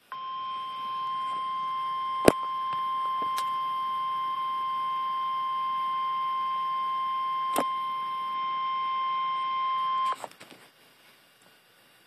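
NOAA Weather Radio warning alarm tone, the 1050 Hz attention signal, through a weather radio receiver's speaker. It is one steady high beep lasting about ten seconds and then cutting off abruptly, with a few sharp clicks over it. It signals an emergency alert, here a severe thunderstorm warning, about to be read.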